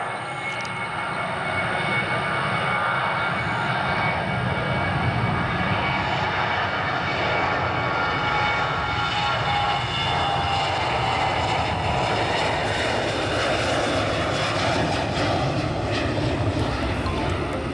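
Boeing 737-700's CFM56-7B turbofan engines at takeoff thrust through the takeoff roll, liftoff and climb-out: a loud, steady jet rush with several whining fan tones, which ease slightly lower in pitch as the aircraft climbs away.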